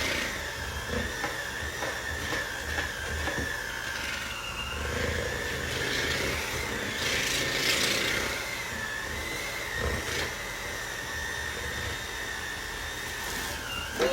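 Electric hand mixer running steadily with a high motor whine as its beaters work through butter, cream cheese and powdered sugar for icing, then switched off right at the end.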